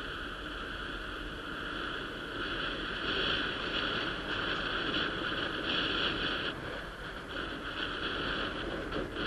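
Steady rushing of wind and road noise from a Superpedestrian e-scooter in motion, growing louder a couple of seconds in and easing off again near the end.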